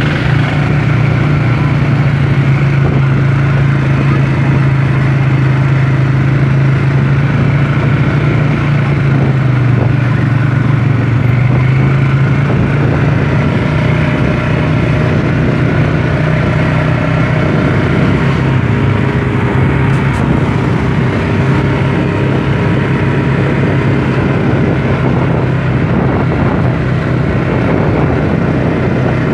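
Quad bike engine running steadily at close range while riding across rough ground, its hum holding a fairly even pitch.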